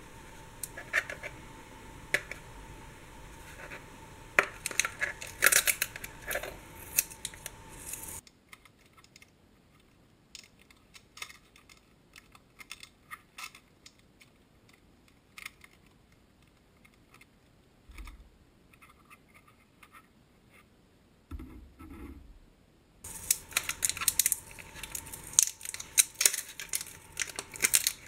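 Hands handling a plastic spork, with small clicks and scratchy rustles, then a paper sticker label being peeled off it, a dry tearing and crinkling near the end. The middle stretch is much quieter, with only a few faint clicks and a soft thump or two.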